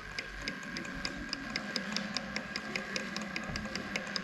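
SYL-08 electric skateboard's 2000 W motor and drive running with a steady whine and a regular clicking, about three to four clicks a second: the strange clicking noise from the motor/drive system that points to a fault.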